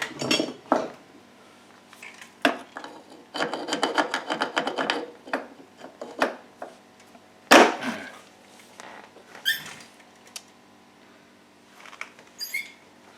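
Metal hand tools clinking, rattling and knocking against a Yamaha WR426F dirt bike engine's cases as a cover stuck on its old gasket is worked at. The sharp knocks are scattered, with a rattling run about three to five seconds in and the loudest single knock about seven and a half seconds in.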